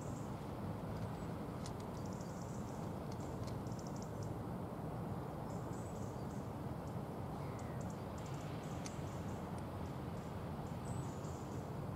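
Small birds chirping in quick high twittering runs that come and go, over a steady low rumble of background noise.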